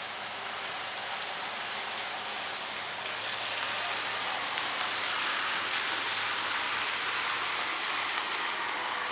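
Steady rain hiss on a flooded street, with a car's tyres swishing through standing water. The swish swells from about three seconds in and eases near the end.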